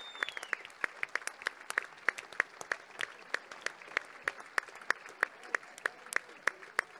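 Audience clapping together in a steady rhythm, about three claps a second.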